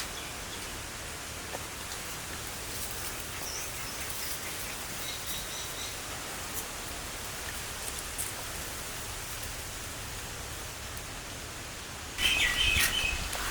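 A large pot of water boiling hard, giving a steady bubbling hiss. A louder, busier noise comes in near the end.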